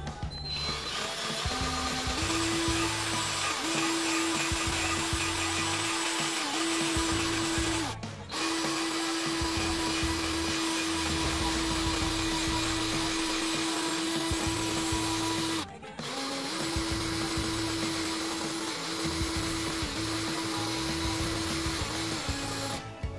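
Small handheld rotary power tool spinning an attachment inside the ports of a Toyota 1ZZ aluminium cylinder head: a steady whine with a hiss of grinding, its pitch dipping briefly now and then as it is pressed in. It runs in three stretches, stopping twice for a moment.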